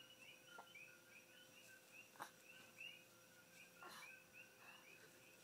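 Faint, steady chorus of high chirps from night creatures, several chirps a second, with a couple of soft clicks.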